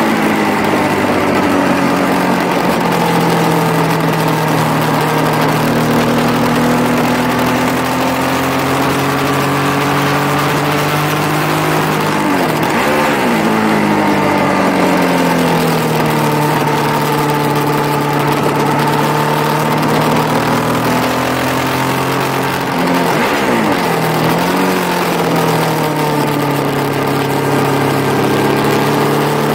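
Yamaha sport motorcycle's engine running on a track lap, its pitch climbing under acceleration and falling as it slows, with quick up-and-down pitch swings about 13 seconds in and again around 23 seconds. A steady rush of wind noise runs under it.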